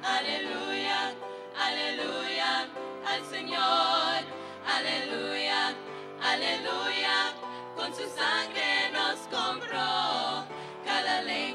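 A small group of women singing a Christian worship song into microphones over instrumental accompaniment, holding long notes with vibrato.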